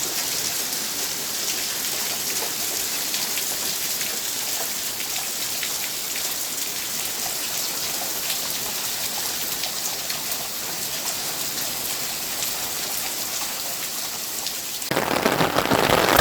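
Heavy rain falling steadily: an even hiss of many drops. It grows louder and fuller about a second before the end.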